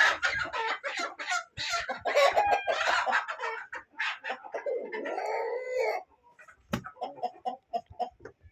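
Flock of desi chickens clucking and squawking, dense and busy at first, thinning to scattered clucks for the last couple of seconds.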